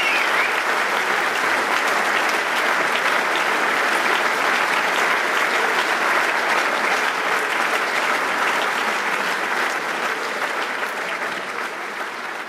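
Audience applauding, a dense steady clapping that gradually fades toward the end.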